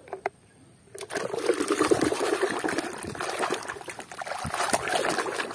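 A hand swishing and sloshing a tub of muddy water to wash a mud-caked toy truck, a steady splashing that starts about a second in. A few light clicks come just before it.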